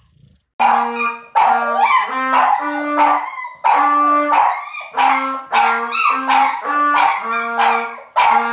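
A trumpet played as a run of about a dozen short, separate notes, starting about half a second in, with a dog howling along in wavering cries over the notes.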